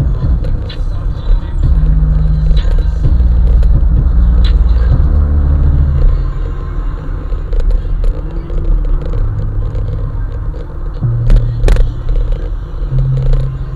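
Heavy-bass rap played loud through a car's sound system, deep held bass notes stepping from one pitch to another over the car's rumble, with scattered light ticks above. It is louder for the first six seconds or so, then drops back a little.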